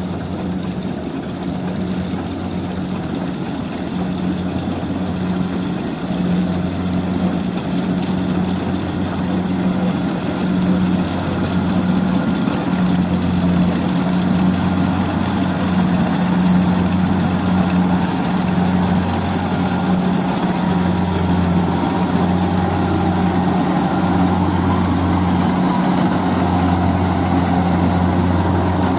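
Kubota DC-70 combine harvester's diesel engine running steadily while it harvests rice, with a low hum and mechanical clatter. It grows gradually louder over the first half, then holds steady.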